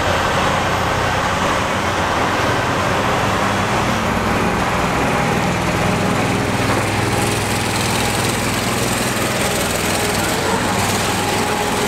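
Diesel engine of a heavy tractor-trailer hauling an oversize load, running steadily as the rig rolls slowly past, over a background of street traffic noise.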